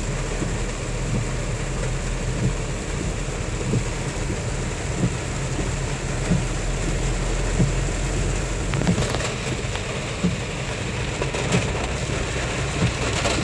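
Rain falling on a moving car, heard from inside the cabin over steady engine and road rumble. A low thump repeats at an even beat about every 1.3 seconds, and a few sharp ticks come in the second half.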